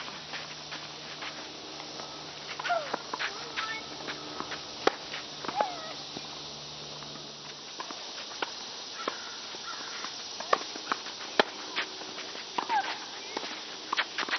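Tennis rally: sharp pops of a tennis ball hit by rackets and bouncing on the court, coming every second or two.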